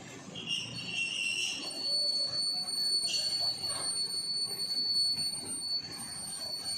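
Motorised metal roller shutter running in its guides, with metal-on-metal squealing: a high squeal about half a second in, then a steady high-pitched squeal from about two seconds in, over a rattling clatter.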